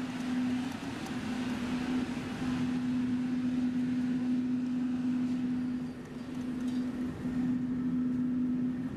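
Steady hum of building machinery in a mechanical room: a constant drone with one unchanging tone under a broad rushing noise.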